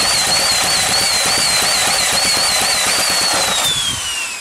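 Electric drill spinning a small petrol engine over by its flywheel nut: a high wavering motor whine over rapid knocking as the engine turns, without it firing. Near the end the drill is let go and its whine falls away. The engine won't start because its flywheel key has sheared.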